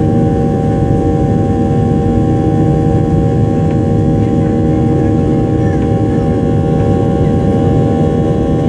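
Boeing 737-800's CFM56-7B turbofan engines heard from inside the passenger cabin, running steadily: a loud, dense low rumble with several steady whining tones over it.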